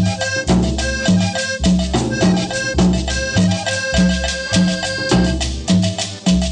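Instrumental cumbia music: a steady bass beat, about two notes a second, under a held melody line and busy percussion, with no singing.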